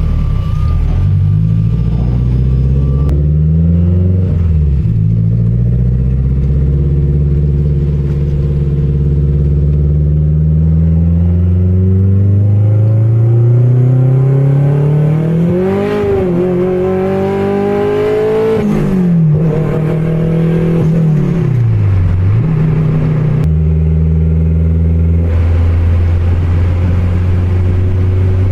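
Turbocharged Honda Accord's engine pulling hard through the gears. Its pitch climbs in long rises and drops sharply at each shift, about three times, then settles to a steady lower drone near the end.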